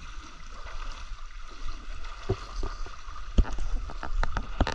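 Splashing and sloshing of shallow river water as a person wades through it, with short splashes that come more often in the second half.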